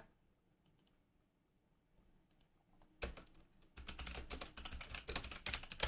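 Near silence, then a single click about three seconds in, followed a moment later by a quick run of clicks from typing on a computer keyboard.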